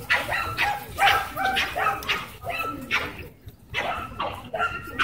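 Dogs barking in quick, repeated barks during rough play, with a brief pause a little past halfway.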